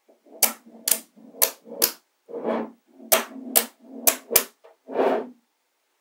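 Slabs of small magnetic balls snapping onto one another: about eight sharp clicks at an uneven pace, with a softer rattle of the balls shifting against each other between them.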